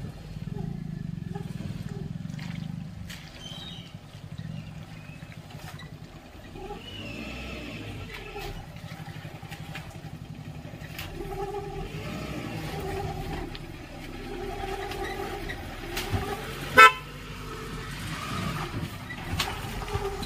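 Maruti Gypsy's engine running at low speed as the 4x4 crawls over rocks and through shallow water, with a brief, very loud sharp sound about three-quarters of the way through.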